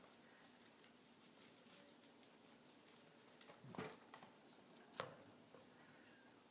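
English lop rabbit eating hay: faint, rapid crunching and rustling of dry hay, with two louder crackles, one a little before the halfway point and one about three-quarters through.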